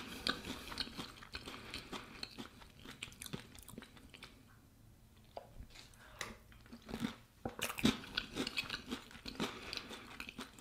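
Close-up chewing of crispy bread croutons, in runs of small crunches and crackles, with a quieter pause about four seconds in.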